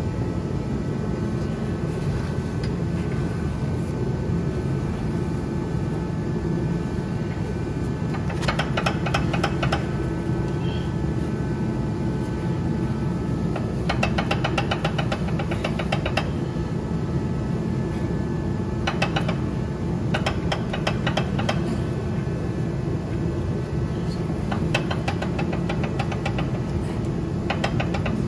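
A steady low machine drone, with several bursts of rapid, evenly spaced rattling that last a second or two each.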